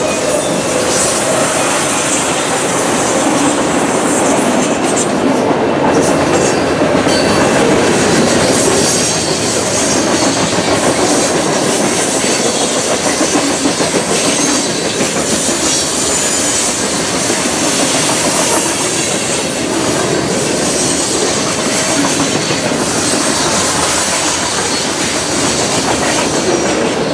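Freight cars of a mixed manifest train rolling past: a steady, loud rumble of steel wheels on the rails.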